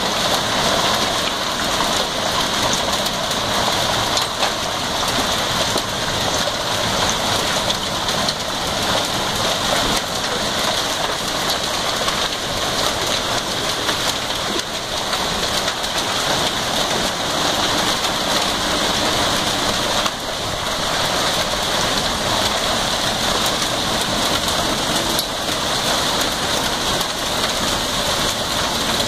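Heavy hail pelting the ground in a dense, steady clatter of countless small impacts.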